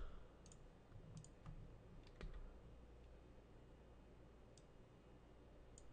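A handful of faint computer mouse clicks, spaced unevenly, over near-silent room tone.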